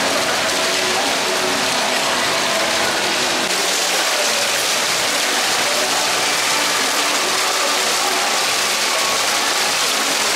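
A steady rushing hiss with faint chatter of voices underneath.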